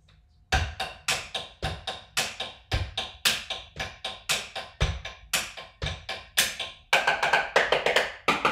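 Basic rock beat drummed on a makeshift kit of upturned plastic kitchen bowls: quick, even hits with a low thump about once a second for three bars, then a faster, busier drum fill near the end.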